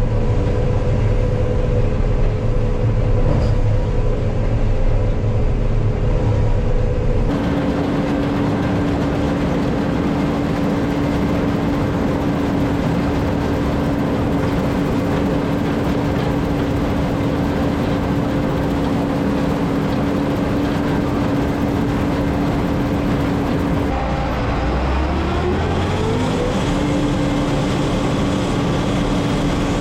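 Combine harvester running steadily while cutting soybeans, a loud continuous machine drone with a steady hum. About 7 seconds in the sound changes abruptly. Near the 24-second mark the hum dips in pitch and climbs back up over about two seconds.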